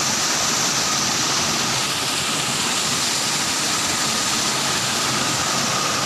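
Small waterfall cascading over rocks into a stream: a steady rushing of water.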